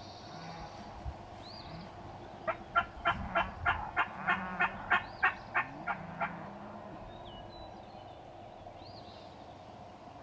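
A run of about a dozen turkey yelps, evenly spaced at roughly three a second, starting about two and a half seconds in and lasting about four seconds.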